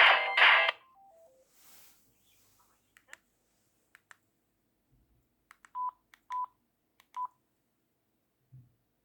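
A mobile phone ringtone cuts off under a second in. A faint falling three-note chime follows, then a few light clicks, then three short beeps at the same pitch less than a second apart, like phone keypad or call tones.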